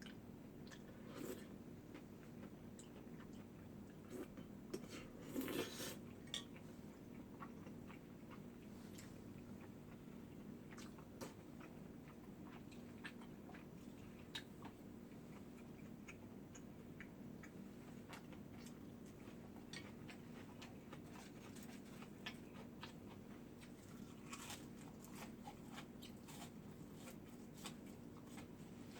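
Faint close-miked chewing and biting of food, with scattered light clicks and a brief busier patch about five seconds in, over a steady low hum.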